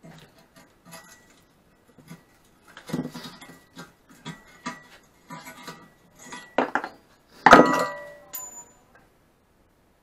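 Screwdriver working against the steel tubing of a mini bike frame: a series of scrapes, clicks and metallic clinks. About seven and a half seconds in comes the loudest clang, which rings on, then a shorter ring as the screwdriver is set down on the bench.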